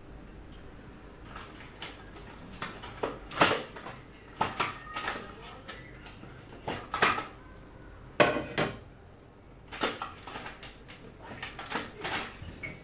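Crockery and cutlery clattering at a kitchen sink: irregular clinks and knocks as plates and utensils are picked up and set down, a dozen or so strokes spaced unevenly.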